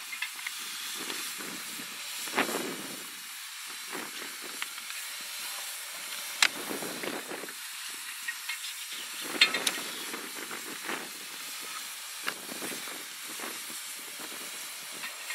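A stationary narrow-gauge steam locomotive hissing steam, the hiss swelling and easing unevenly, with a few sharp clicks along the way.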